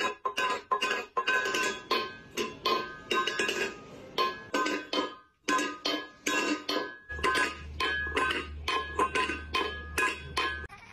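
Stainless steel cat food bowl clanking and ringing as a cat strikes it again and again with its paw, several clinks a second, a cat's way of waking its owner.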